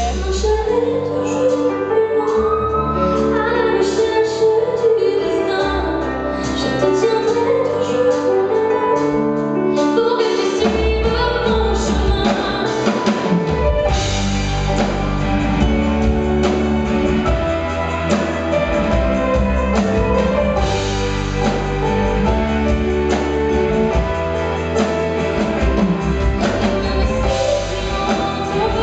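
A woman singing a pop song live with a band of electric guitar, keyboard and drums. The bass drops away for the first ten seconds or so, then the full band comes back in.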